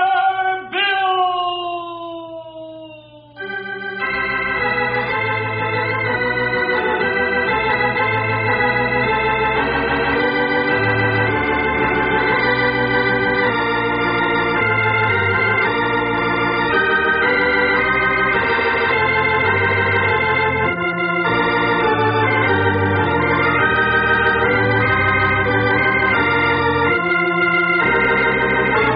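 Organ playing the radio show's closing theme, a run of full held chords that comes in at full strength about four seconds in, after a brief falling note.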